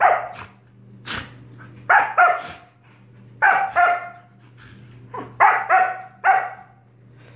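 Dog play-barking in short clusters of two or three barks, four clusters about one to two seconds apart, while wrestling with another dog.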